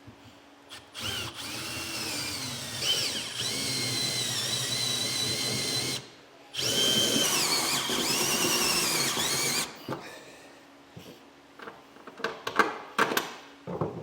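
Power drill with a step bit cutting through the pickup's sheet-metal bed, opening pilot holes up to 9/16 inch. It makes two runs of a few seconds each with a brief stop between, its whine shifting in pitch as the bit cuts. A few knocks follow near the end.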